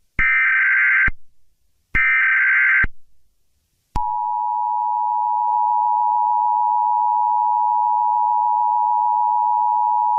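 Emergency Alert System SAME header: two short, sharp-edged digital data bursts, about a second each and a second apart. About four seconds in, the steady two-tone EAS attention signal (853 and 960 Hz together) starts and holds.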